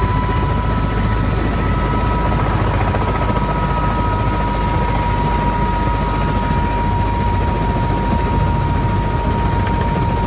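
Helicopter running steadily, heard from inside the cabin: a dense rotor and engine rush with a high whine that sinks slightly in pitch.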